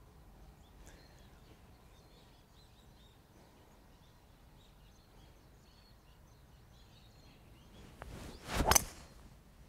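A golf shot: the club's short whoosh rising to a sharp strike about eight and a half seconds in. Faint birds chirp before it.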